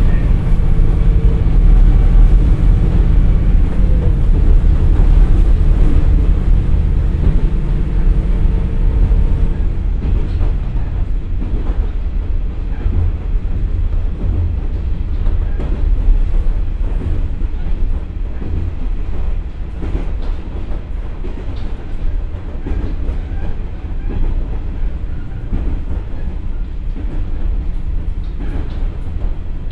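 Interior running sound of a KiHa 47 diesel railcar with a Komatsu engine. The engine drones under power for about the first nine seconds, then its note drops away. The car runs on more quietly, with the rumble of the wheels and occasional knocks over the rail joints.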